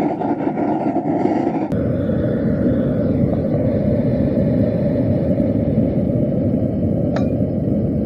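Propane burner running: a loud, steady rush of flame noise, slightly brighter and hissier for the first couple of seconds.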